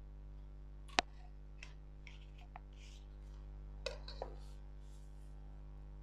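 Clear plastic ruler being set down and slid into place on paper on a drawing board. A sharp click comes about a second in, soft rustles as it slides, then two more clicks a little before four seconds in, over a steady low hum.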